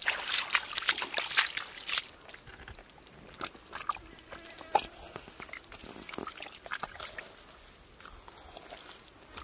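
Mud-covered catfish squirming in a bamboo fish basket: wet slaps and clicks against the slats, densest in the first two seconds, then scattered.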